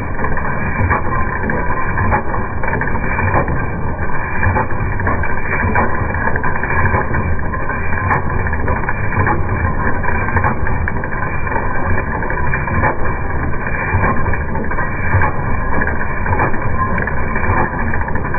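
Small stationary engine and the roller chain and sprockets it drives on a log saw, running, heard slowed down to a low, even rumble with faint scattered clicks.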